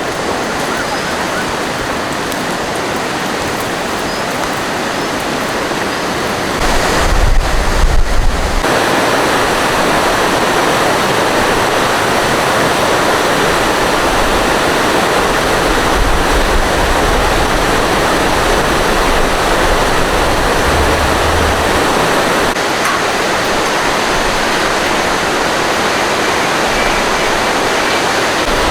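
Steady, loud rushing water, like a mountain river or waterfall. About seven seconds in there is a brief low buffeting on the microphone.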